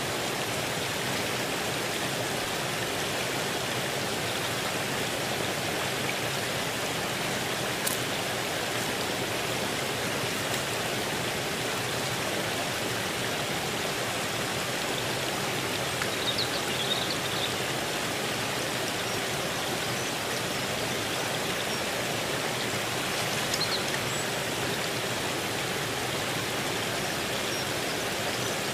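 Steady rushing of running water, an even, unbroken wash of sound, with a few brief faint high chirps about halfway through and again later.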